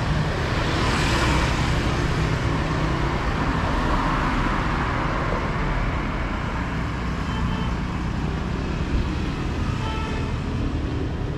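Road traffic going by steadily, engines running, with a few vehicles passing close in the first few seconds.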